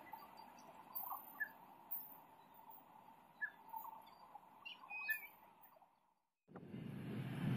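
Faint, scattered bird chirps over a quiet outdoor background. About six seconds in, the sound cuts out completely for a moment, then a low rumble starts and grows louder.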